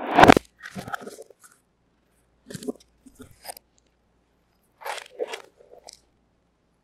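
Gloved hands handling a black textured zippered microphone pouch and setting it down into a cardboard box. A loud rustling crunch comes at the start, then several shorter crinkly rustles and bumps, the last cluster about five seconds in.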